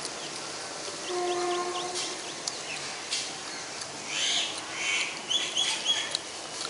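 Birds chirping and calling, with a run of louder, sharper calls in the second half. About a second in, a steady low tone sounds for about a second.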